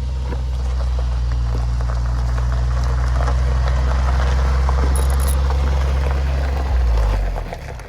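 A vehicle engine running steadily with a low, loud hum. About seven seconds in it drops in pitch and dies away.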